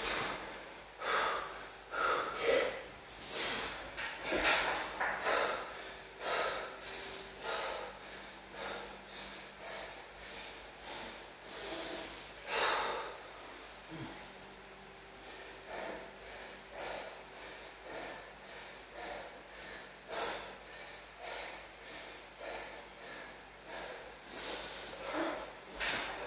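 A man breathing hard and fast, out of breath from a timed workout circuit. The breaths come about one a second and loud at first, ease and grow fainter through the middle, and pick up again near the end.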